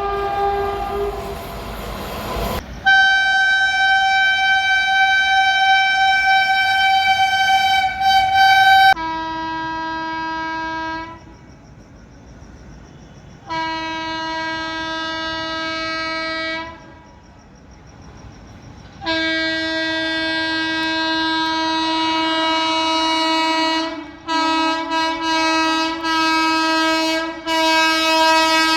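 Indian Railways locomotive horns sounding long blasts, after a couple of seconds of running-train noise. A higher-pitched horn holds for about six seconds. Then a lower-pitched horn gives two blasts of two to three seconds each, and a long blast broken by a few short toots near the end.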